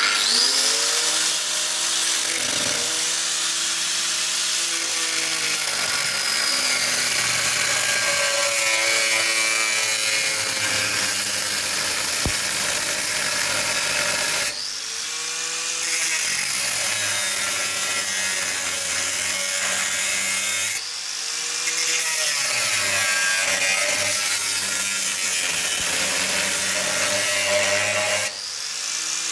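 Angle grinder with a cutting disc cutting into the rusted steel rear chassis of a Land Rover Defender 110, a loud continuous grinding screech. It starts abruptly at the beginning, and the motor's pitch sags and recovers three times as the disc is eased off and back into the cut.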